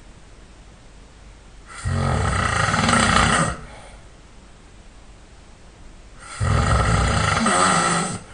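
A person snoring loudly and hard in sleep: two long snores, each nearly two seconds long, about four and a half seconds apart.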